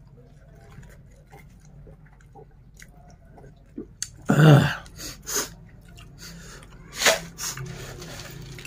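A man eating: quiet chewing and small mouth clicks, then loud breathy exhalations of falling pitch about four seconds in and again near seven seconds, the hot gasps of someone eating very spicy food.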